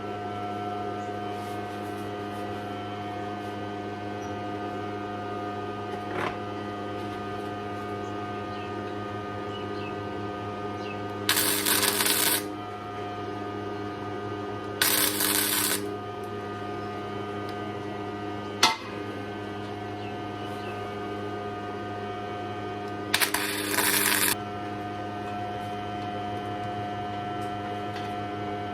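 Three short welding tacks, each about a second long, as steel washers are tack-welded onto a truck frame for tabs, over a steady electrical hum. A single sharp click falls between the second and third tacks.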